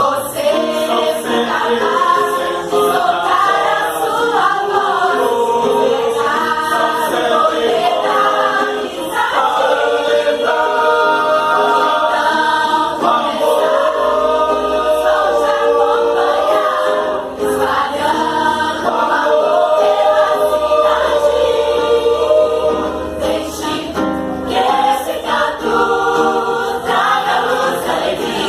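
A choir singing a song, several voices together in harmony.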